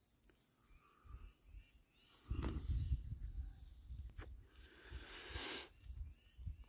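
Steady high-pitched chorus of crickets, with low rumbling on the microphone from a little over two seconds in.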